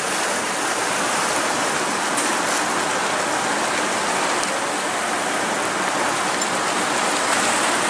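Seawater washing and splashing steadily over shoreline rocks and pebbles.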